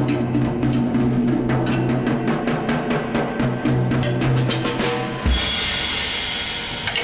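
Drum kit played fast, with rapid snare and tom hits over a sustained low ringing. About five seconds in it ends on a bass drum hit and a crash cymbal that rings out.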